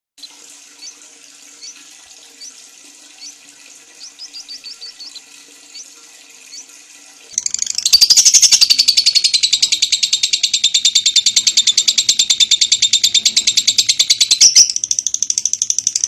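Fisher's lovebird giving a long "ngekek" chatter: a loud, fast string of sharp high chirps, about ten a second, which starts some seven seconds in after a few faint scattered chirps. Near the end it breaks briefly and carries on a little quieter.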